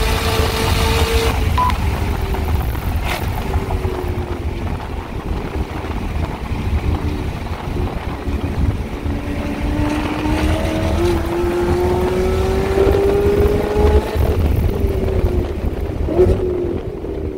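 Supercharged 6.2-litre V8 of a 2018 Chevrolet Camaro ZL1 1LE heard from inside the cabin at track pace. The engine note drops as the car brakes hard from about 140 mph, climbs steadily as it pulls out of a corner, then falls again under braking near the end. Heavy wind noise runs throughout.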